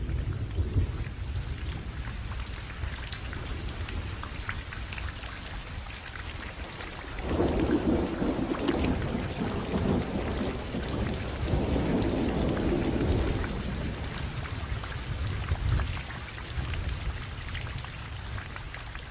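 Rain sound effect: steady rain falling and pattering, with low rolls of thunder swelling twice near the middle.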